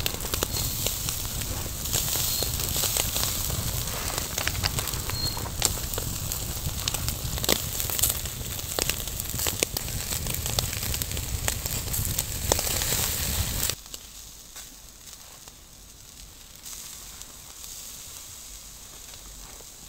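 Wood fire crackling with frequent sharp pops. About two-thirds of the way through it cuts off abruptly, giving way to a quieter, steady hiss.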